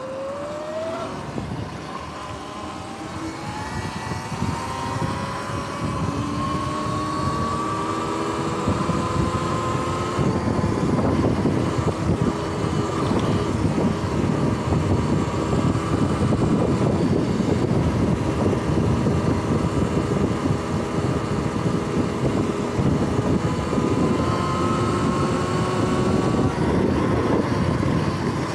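Sur-Ron X electric dirt bike's motor whine, rising in pitch as the bike speeds up over the first ten seconds, then holding steady at cruising speed. Under it is a rushing noise of wind and the ride that grows louder with the speed.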